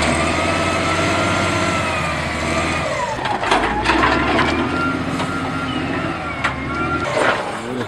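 XCMG wheel loader with a log grapple working: its diesel engine runs under a whine that rises and then falls, with knocks and clanks about three and a half seconds in and again near the end.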